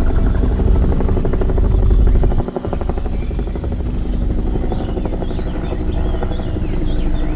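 Helicopter sound effect: a fast, steady rotor chop over a low rumble, with a brief dip about two and a half seconds in. Birds chirping join in the second half.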